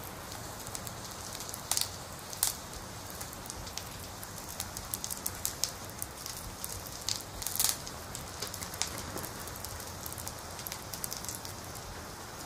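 Water lapping and trickling around a small wooden boat being poled through shallow water, with a few short, sharp splashes or drips: two about two seconds in and two more past the middle.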